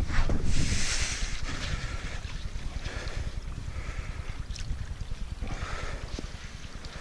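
Wind buffeting the microphone: a steady, uneven low rumble, with a louder rush of hiss about a second in.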